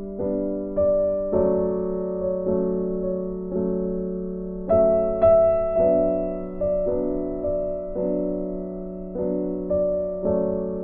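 Soft background piano music: notes and chords struck at an unhurried, even pace, each fading before the next.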